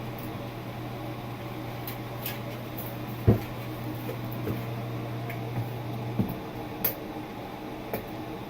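Bathroom exhaust fan running with a steady low hum, fitted with replacement fan blades, with a couple of light knocks about three and seven seconds in.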